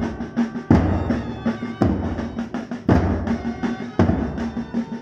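Large bass drums beaten in a band display: a heavy stroke about once a second, with quicker, lighter drumming between the strokes and some short higher tones above.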